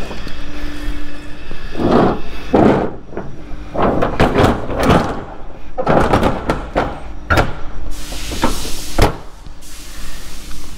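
Rear door of a Schmitz box semitrailer being swung and worked by hand, with a series of metal clanks and knocks from the door and its locking rods; the door won't easily shut.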